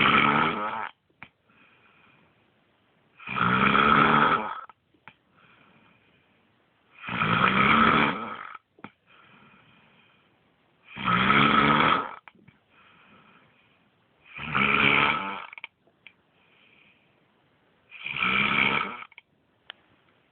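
Snoring: six loud snores, about one every three and a half to four seconds, each lasting about a second, with faint quieter breaths between them.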